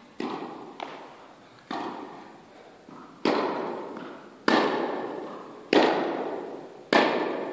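Tennis rally: a tennis ball struck back and forth with rackets and bouncing on the court, seven sharp pops about every second or so, the last three loudest. Each pop rings on in a long echo of the large indoor hall.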